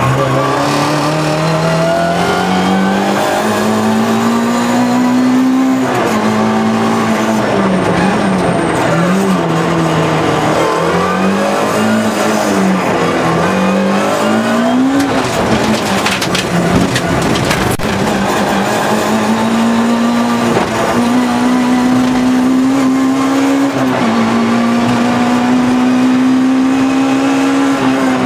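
Small four-cylinder rally car engine, plausibly a Vauxhall Corsa 1.4 8-valve, heard from inside the car. It is revved hard through the gears, with the pitch climbing and dropping again and again at shifts and lifts. About halfway through the revs fall away into a patch of rattling and tyre noise, then the engine pulls high and steady again.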